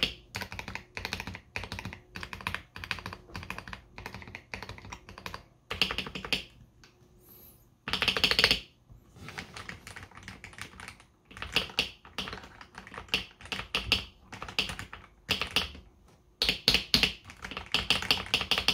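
Typing on a KBD67 Lite R3 mechanical keyboard fitted with lubed Akko CS Jelly Black heavy linear switches: runs of key clacks broken by short pauses, with a few quick flurries of keystrokes.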